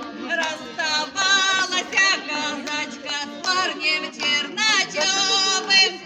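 Folk ensemble of men's and women's voices singing a Russian folk song together, with musical accompaniment under the voices.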